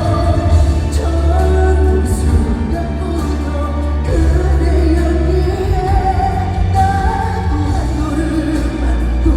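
A male singer singing a pop ballad live with band accompaniment, over a steady heavy bass.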